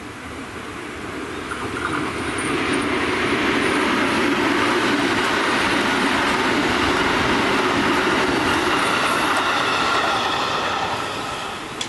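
JR West commuter electric train passing along the track, its wheels running over the rails. The sound swells over a couple of seconds, holds steady and loud, then fades away near the end.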